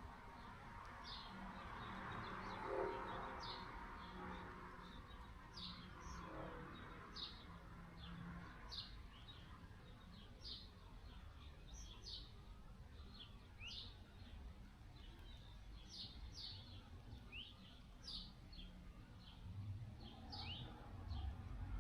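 Small birds chirping outdoors, short high chirps one or two a second, over a faint low background rumble.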